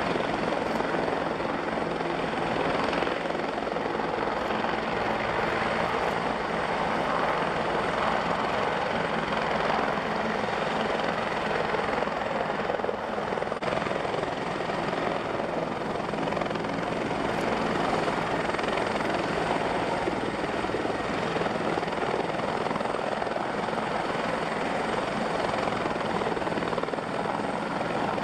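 Airbus H125 (AS350 B3e) helicopter, its single Arriel 2D turboshaft and rotor running steadily and evenly, without any rise or fall.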